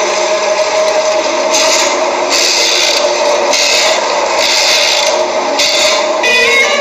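Harsh, continuous scraping, rasping horror sound effect, growing hissier in surges about once a second. Near the end a high violin sting begins.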